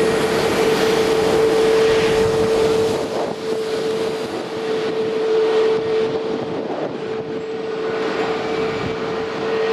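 Jet engine roar from an Airbus A320neo's CFM LEAP-1A turbofans at takeoff power as the airliner climbs away, a broad rushing noise carrying a steady droning tone. It eases slightly after about three seconds.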